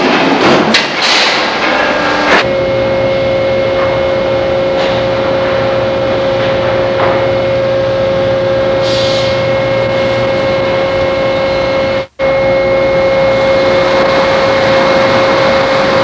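Sawmill machinery running loud and steady with a constant whine, with a few knocks and clatter in the first couple of seconds. The sound breaks off for an instant about twelve seconds in.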